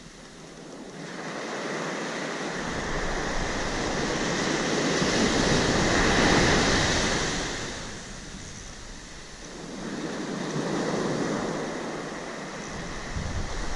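Ocean surf breaking on a sand beach: a rushing wash that swells to its loudest about six seconds in, falls away, then builds again with the next wave.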